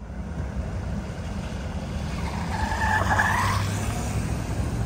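New GM full-size SUVs rolling slowly past with a steady low engine and tyre rumble, louder as one passes close; a brief high squeal rises above it about halfway through.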